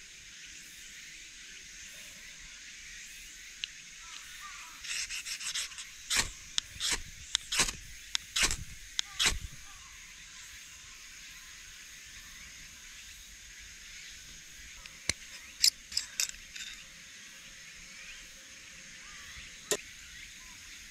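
Spine of a knife scraped hard down a ferrocerium rod several times in quick succession, between about 5 and 9 seconds in, throwing sparks. A few sharp clicks of handling the rod and knife follow later, over a steady high background hiss.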